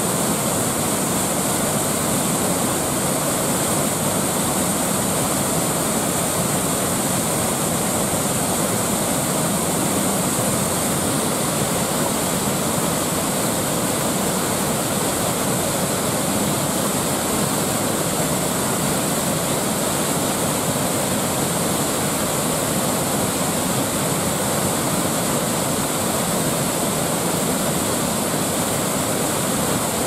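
A waterfall rushing steadily, heard at close range: white water pouring over a rock ledge into a churning pool, an unbroken roar without change.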